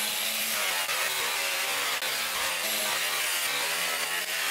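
Electric buffer spinning a soft white buffing wheel charged with white jeweler's rouge against an aluminum bumper, the final polishing pass: a steady motor hum under the rushing hiss of the wheel rubbing the metal.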